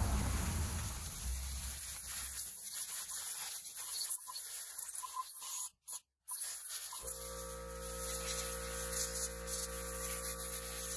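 Garden hose water spraying and splashing over a Triumph Spitfire cylinder head, fading after about two seconds into scrubbing and scraping on the head. From about seven seconds a steady hum runs under the scrubbing.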